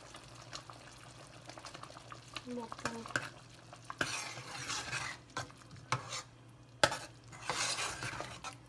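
A metal spoon stirring thick dal in a stainless steel pot. About four seconds in, the stirring starts: the liquid swishes and the spoon clinks sharply against the pot several times.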